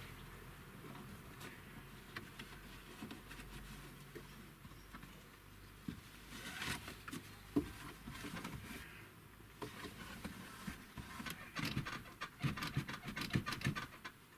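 Hands working nylon tie-down straps and their buckles and hooks: scattered rustles and small clicks, sparse at first and getting busier in the second half.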